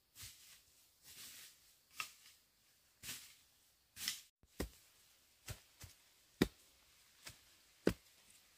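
Soft rustling and swishing, then after a brief break a run of sharp, evenly spaced strikes, about one a second.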